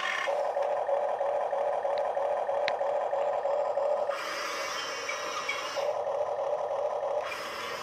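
Huina RC toy excavator's small electric gear motors whirring steadily, with the plastic tracks and gears grinding on a wooden floor. The sound switches to a harsher, higher grinding about four seconds in and again near the end, as the excavator drives and turns.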